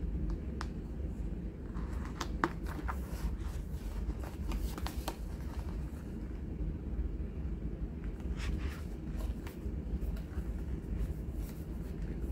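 Glossy pages of a CD album's photobook being handled and turned: scattered crisp paper rustles and small clicks, in two clusters, over a steady low hum.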